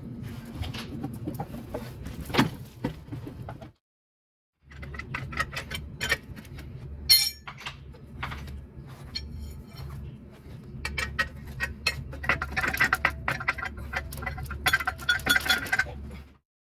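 Repeated clinking and tapping of metal tools and parts over a low steady hum, with many short sharp strikes.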